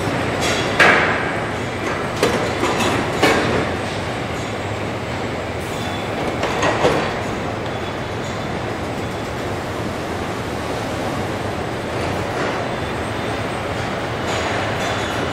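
Truck assembly-line machinery: a steady mechanical rumble of overhead conveyors carrying pickup frames, with several sharp metal clanks in the first seven seconds.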